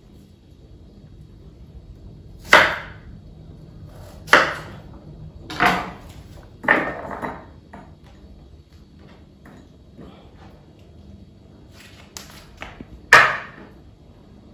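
Kitchen knife cutting an onion into wedges on a wooden cutting board: a few sharp, separate chops a second or more apart, then a couple of lighter taps and one more chop near the end.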